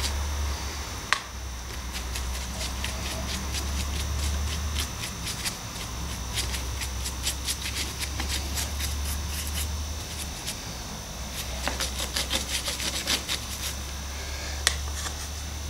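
Paintbrush scrubbing and dabbing a watery black acrylic wash onto cast model rocks: a run of quick scratchy ticks, with a sharper tap about a second in. A steady low hum runs underneath.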